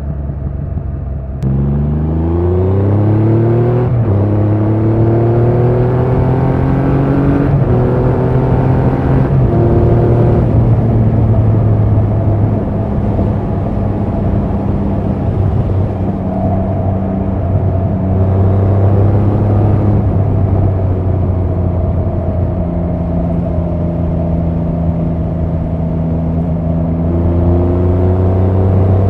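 2024 Triumph Rocket 3 GT's 2.5-litre inline-three engine and exhaust pulling hard through the gears: the pitch climbs and drops back at each of about four upshifts, then holds steady at cruising speed and starts climbing again near the end.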